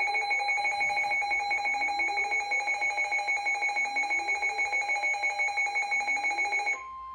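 Emergency Alert System attention signal for a severe thunderstorm warning: a loud electronic alert tone of several steady pitches pulsing rapidly, with a lower tone gliding upward every second or two underneath. Near the end it switches to a quieter single steady beep.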